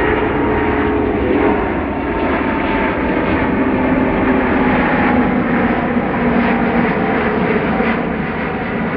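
Airbus A350's twin Rolls-Royce Trent XWB turbofans at takeoff thrust as the jet climbs out, a steady loud roar with faint humming tones in it.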